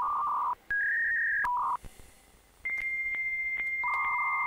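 A string of electronic beeps at several pitches, like telephone keypad dialing tones: short paired tones change pitch every half second or so, then after a brief gap a long steady high beep sounds, joined by a lower tone near the end.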